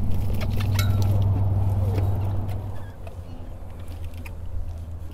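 Boat motor idling with a steady low hum that drops in level about three seconds in, with faint clicks and rustles from a gill net being hauled aboard.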